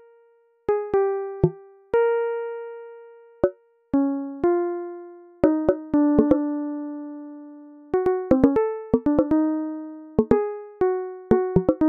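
Background music: a slow keyboard melody of single struck notes, each ringing out and fading, with a few quicker runs of notes near the end.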